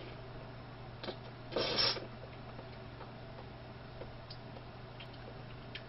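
Quiet eating sounds of a person taking a spoonful of soft dessert: a short breathy mouth noise about a second and a half in and a few faint spoon or mouth clicks, over a steady low hum.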